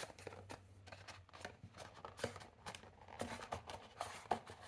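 Packaging being opened and handled by hand: faint, irregular light clicks, taps and rustles.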